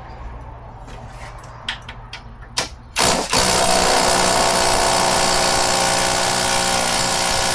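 Small handling clicks, then about three seconds in a handheld power tool starts and runs steadily on a 10mm seat bolt. The bolt does not break loose: it was fitted very tight.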